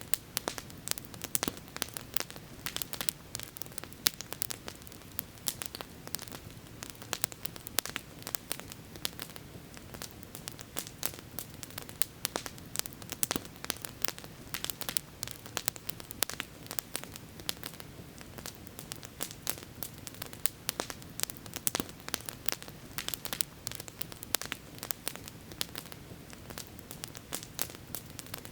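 Campfire burning with dense, irregular crackling and sharp pops over a soft steady rush.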